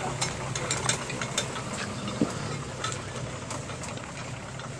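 Off-road jeep engine running at low revs as the vehicle crawls along a rough trail, with scattered clicks and knocks. The engine grows slightly fainter as it pulls away.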